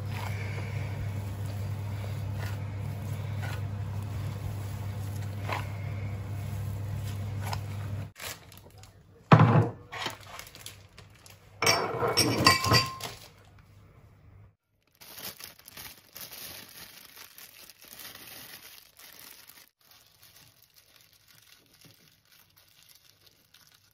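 Gloved hands kneading a sticky minced-pork mixture in a pot, with faint soft squishes over a steady low hum that stops about eight seconds in. A sharp knock comes about nine seconds in, then a louder clatter near twelve seconds as the metal pot is handled on the counter.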